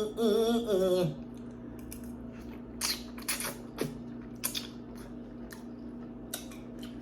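Short, irregular smacking clicks of a person chewing food, a dozen or so scattered over several seconds, over a steady low hum. A woman's voice hums in a sing-song for about the first second.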